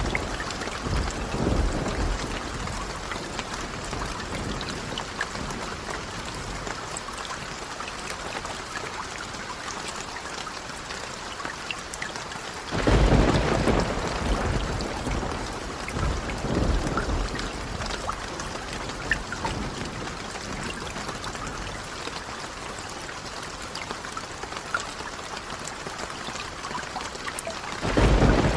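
Steady rain with rolling thunder. A rumble fades out at the start, a loud clap breaks in about halfway and rolls off, a weaker rumble follows a few seconds later, and another loud clap starts right at the end.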